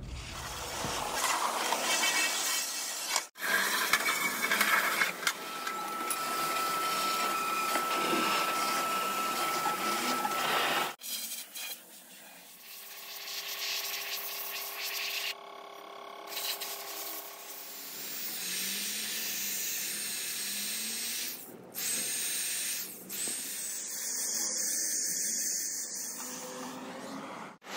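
Rust being scraped and wire-brushed off cast-iron drill press parts, in several short clips with abrupt cuts between them. Near the end a power-driven wire cup brush grinds along the rusty steel column.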